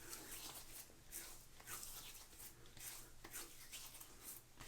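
Faint, irregular splashes and rubbing as wet hands lightly wet a stubbled face, several soft strokes over a few seconds.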